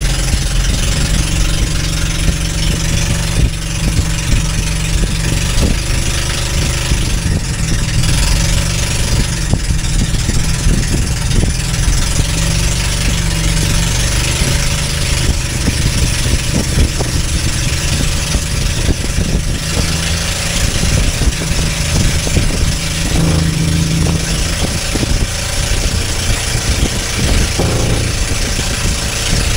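A bangka outrigger boat's engine running steadily as the boat moves across the water, over a constant hiss.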